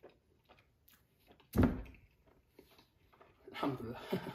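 A person chewing a mouthful of naan dipped in butter chicken sauce, with small wet mouth clicks. There is a sudden louder thump about one and a half seconds in, and a longer breathy sound near the end.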